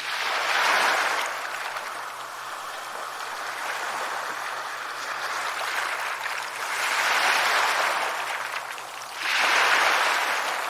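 Sea waves breaking and washing up a shore, the surf swelling three times: about a second in, around seven seconds in, and again near the end.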